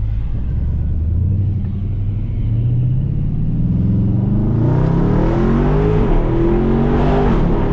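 Jeep Grand Cherokee SRT's V8 engine pulling the car away, heard from inside the cabin. It runs steadily for the first couple of seconds, then the revs climb, drop briefly at a gear change about six seconds in, and climb again.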